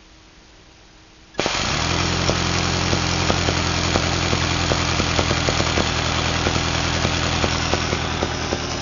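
Air-powered die grinder cutting in suddenly about a second and a half in and running steadily at full air pressure, spinning a car alternator: a loud air hiss over a steady low hum with small irregular ticks. It is too weak to turn the alternator fast enough to charge the battery.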